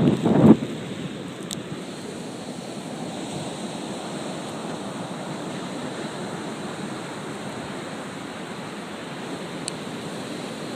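Steady rushing noise of surf on the shore mixed with wind. A brief loud low rumble comes right at the start.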